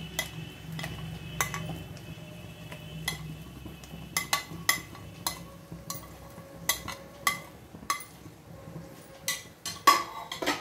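Diced bell pepper being tipped off a ceramic plate into a nonstick wok of frying onions: an irregular string of sharp clicks and knocks as the plate and a spoon tap against the pan and pieces drop in, with a louder clatter near the end.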